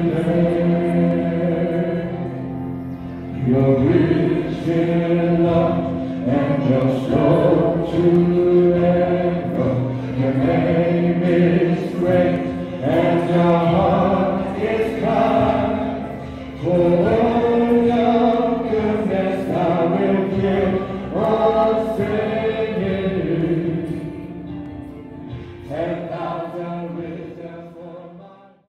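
A group of voices singing a Christian worship song in English, led by singers on microphones. The singing fades away near the end.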